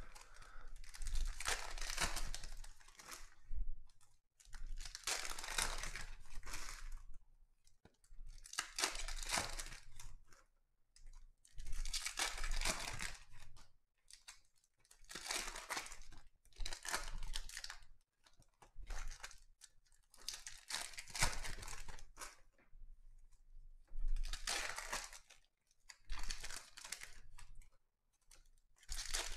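Foil trading-card packs of Donruss Optic football being torn open and their wrappers crinkled, in repeated bursts every three to four seconds, as one pack after another is opened.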